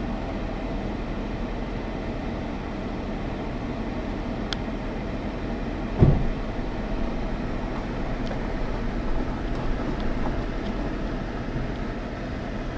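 Steady hum inside a car, with one sharp thump about six seconds in.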